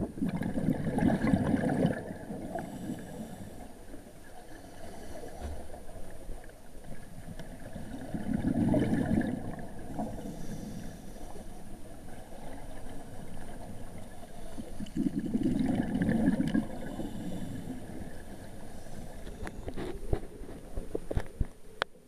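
Scuba diver's exhaled regulator bubbles heard underwater: three bubbling bursts about seven seconds apart, one per breath, with a quieter steady wash between them and a few sharp clicks near the end.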